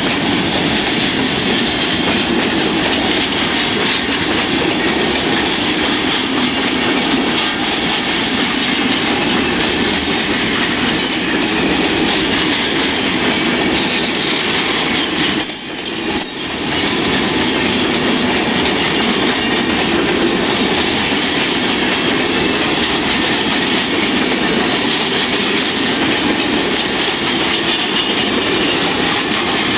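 Freight train wagons rolling past at close range: a continuous loud rumble and rattle of steel wheels on the rails, easing briefly about halfway through.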